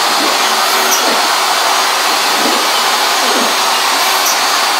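Steady, loud whir of a running workshop machine motor. Faint whines rise and fall every second or so, from the CNC router's stepper motors driving the gantry.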